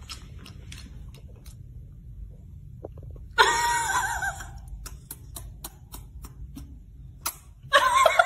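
A steady low rumble, with a person's voice breaking in briefly about three and a half seconds in, a run of faint clicks, and a person starting to laugh near the end.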